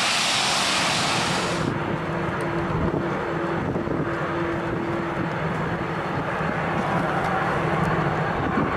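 Airbus A380's four jet engines running: first a loud, high hiss and whine from close by, then, after an abrupt cut about two seconds in, a steadier rumble with a low hum as the airliner rolls down the runway, with wind on the microphone.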